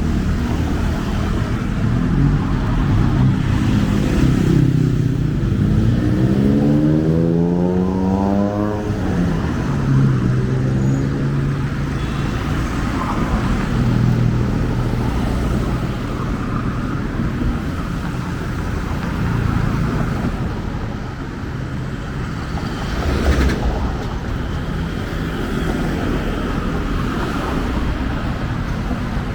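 Street traffic: steady engine noise from passing cars and motorbikes. About six seconds in, one vehicle's engine revs up, rising in pitch for a few seconds.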